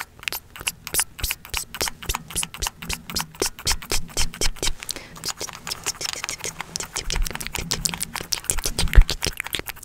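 Fast close-miked ASMR tapping and clicking, several sharp clicks a second, with some scratching and a single louder thump near the end.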